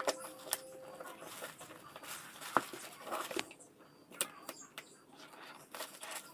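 Light handling noises: scattered small clicks and taps with soft rustling, fairly quiet.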